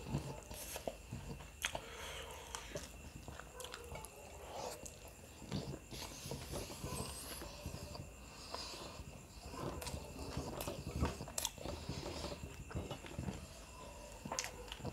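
Close-miked chewing of samba rice and devilled chicken eaten by hand, with irregular small clicks as fingers mix rice on a plate.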